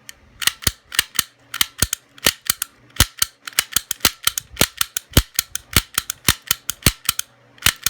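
Sparrows Tap Gun pick gun snapping its needle against the pin stack of a padlock, a quick series of sharp metallic clicks about four a second, unevenly spaced, with a short pause near the end. The lock has not opened yet.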